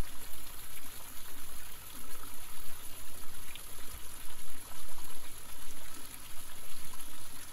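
Running water flowing, an even rushing with an uneven rise and fall in level.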